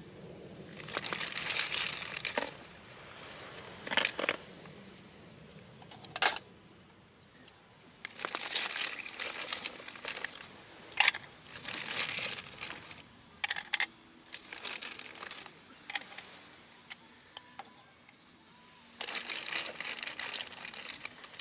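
Crinkling and rustling of something being handled, in irregular bursts, with several sharp clicks and knocks.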